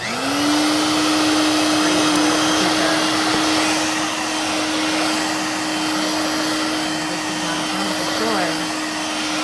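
Dirt Devil Vibe corded stick vacuum motor switched on and spinning up, then running steadily with a loud rush of air and a constant whine.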